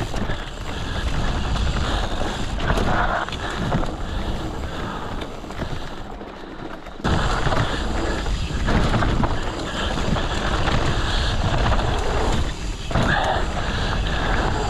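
Wind noise on a GoPro's microphone and the rumble of a mountain bike riding a dirt trail. The noise drops briefly around six seconds in, then comes back abruptly just past seven.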